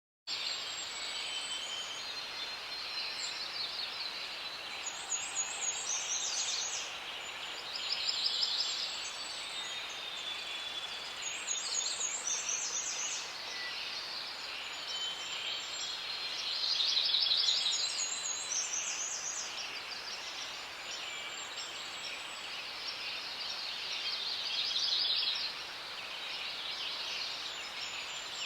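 Forest ambience: several birds singing and calling in repeated phrases over a steady hiss, starting suddenly out of silence.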